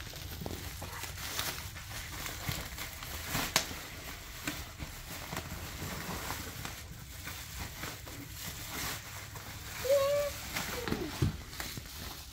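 Bubble wrap rustling and crinkling as it is handled and pulled open, with scattered small clicks and one sharper click about three and a half seconds in.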